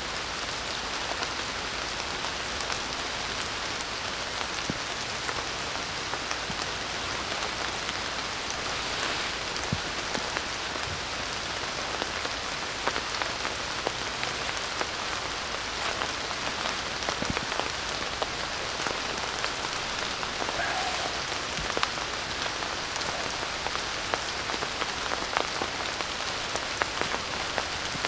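Steady rain falling on the leaves and grass of a forest, with scattered sharper drops.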